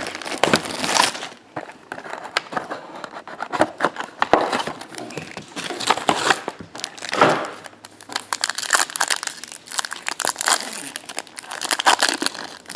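Plastic shrink wrap crinkling and tearing as it is stripped off a trading-card box, followed by the cardboard box being opened and a foil card pack crinkling near the end, in irregular crackly bursts.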